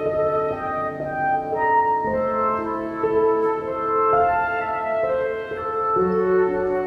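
Instrumental background music: held, steady notes that change pitch every second or so.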